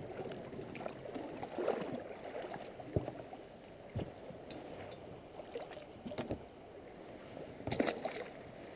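Inflatable pontoon boat being rowed along a river bank: water splashing and lapping at the oars and pontoons, with a few sharp knocks spread through.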